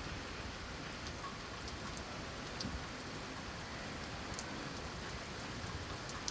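Steady rain falling: an even hiss with scattered sharp ticks of single drops striking a surface.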